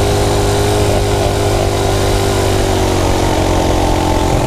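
Coleman mini bike's small single-cylinder engine running steadily under load on a hill climb, its pitch sagging slightly, with wind rushing over the microphone.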